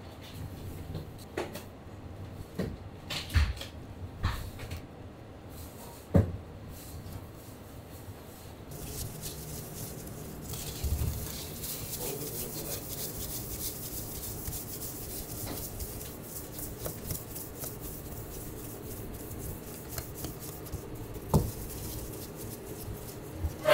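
Gloved hands turning cooked pork in a stainless steel mesh basket, with scattered metal clicks and knocks. From about nine seconds in, a steady rubbing hiss as pizza dough is pressed and stretched on a dusted metal counter.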